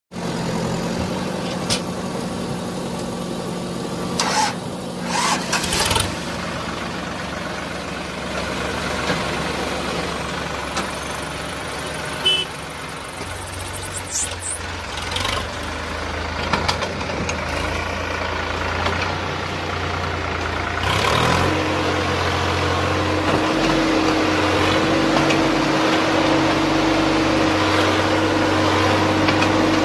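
Sonalika DI-50 Sikander tractor's diesel engine running while hitched to a heavily loaded trailer, with a few short knocks in the first half. About two-thirds in the engine note climbs and holds higher and louder as the tractor pulls the load away.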